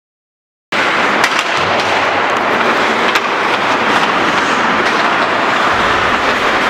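Ice hockey play in an indoor rink: skate blades scraping the ice and sticks clacking on the puck, with a few sharp clicks over a steady, echoing hiss. It starts after a moment of silence.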